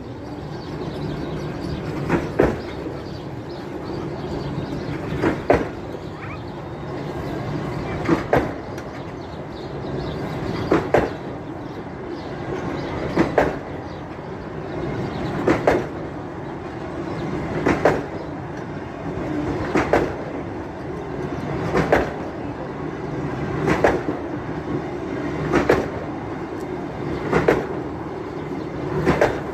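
Talgo passenger train running on jointed track: a steady rumble with paired clickety-clack knocks as the wheels cross rail joints, about every two to three seconds, coming closer together toward the end.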